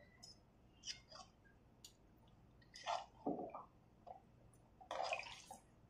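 Faint kitchen handling sounds from a pan of brinjal curry: a few short, soft clicks and wet squishes, three main ones spaced about two seconds apart with small ticks between.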